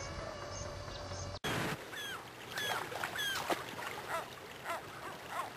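Small birds chirping over a steady hum. After a sudden cut about a second and a half in, a shallow river rushes while gulls call over and over.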